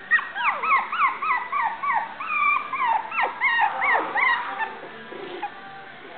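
Young puppies yipping and whining as they play: a quick run of short, high calls, each falling in pitch, that stops after about four and a half seconds.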